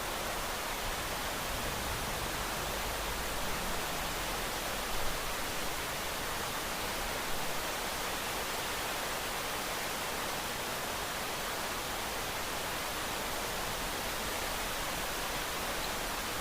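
Steady rain with an even hiss and no distinct drops or thunder, a few slight bumps in loudness around the fifth and seventh seconds.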